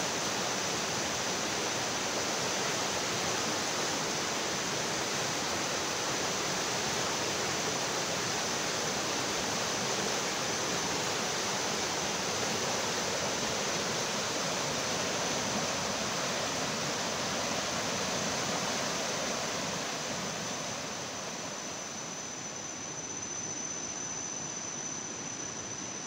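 Fast-running muddy floodwater in a river, a steady rushing roar that eases a little near the end.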